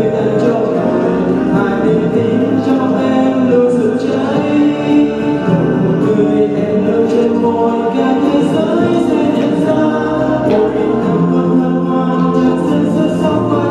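A young man singing a Vietnamese song into a handheld microphone over backing music, heard through the PA system.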